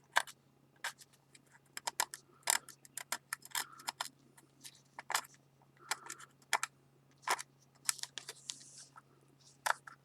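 Irregular short scrapes and clicks of a tool working over a glazed stoneware plate, cleaning excess lacquer off the kintsugi repair, over a faint steady low hum.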